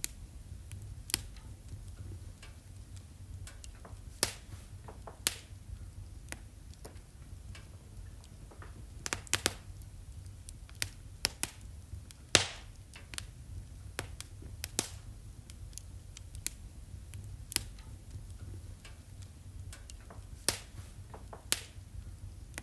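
Wood fire crackling in a fireplace: irregular sharp pops and snaps, sometimes several close together, the loudest about halfway through, over a low steady rumble.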